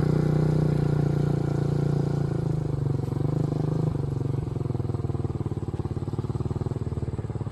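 Honda 300EX ATV's single-cylinder four-stroke engine running steadily as the quad rides away, slowly growing fainter.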